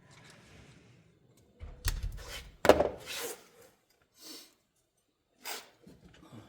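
A handful of sharp knocks and clatters from work being handled at close range, with the loudest knock about three seconds in and smaller ones at about four and five and a half seconds.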